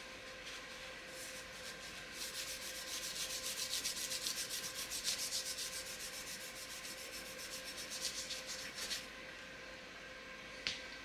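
Paper towel rubbing against a glass jar in quick, repeated wiping strokes. The strokes build up about two seconds in and stop about nine seconds in, with a single click near the end.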